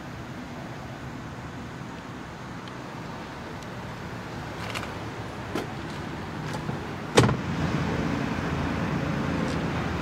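A few light clicks and then one sharp knock about seven seconds in, over a steady background hiss that is a little louder after the knock.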